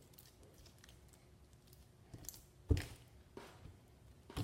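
Sticky homemade slime being handled and pulled, making a few short sharp clicks and pops, the loudest about two and a half seconds in. The slime is still too sticky and under-activated.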